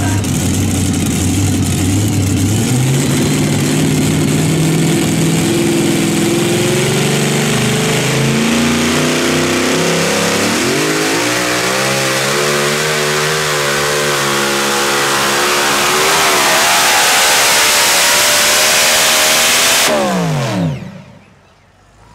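Pulling vehicle's engine at full throttle during a pull run, its pitch climbing in steps and then wavering up and down. About twenty seconds in it cuts off, the pitch falling away as it winds down.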